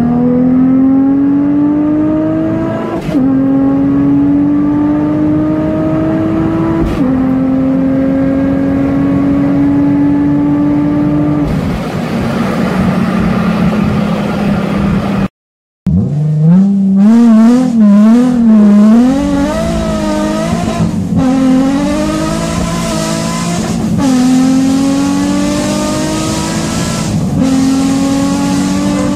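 Nissan 350Z's 3.5-litre VQ35 V6 heard from inside the cabin under hard acceleration: the engine note climbs steadily in each gear and drops sharply at each of several upshifts. After a brief cut, a second run begins with the revs wavering up and down before more climbing pulls and upshifts.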